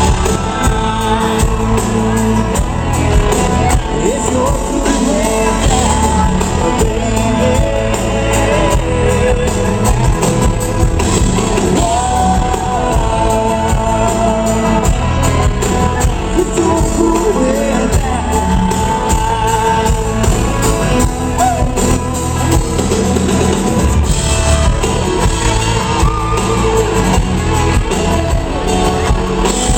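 Live country-rock band playing loud amplified music in a hall, with singing and shouting over it.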